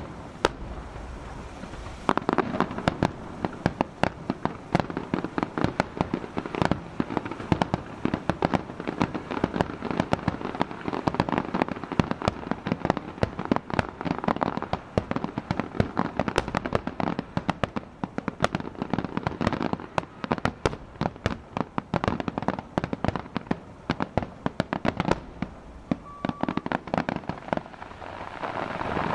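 Fireworks display: a dense run of sharp bangs and crackles, many a second, that thickens about two seconds in.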